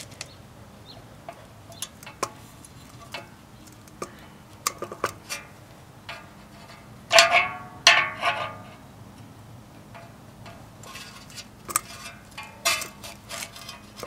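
Adjustable wrench clicking and clinking against the fan blade's metal hub as the blade is tightened onto the motor shaft: scattered light ticks, then two louder metal clanks that ring briefly about seven and eight seconds in, and a run of quicker clicks near the end.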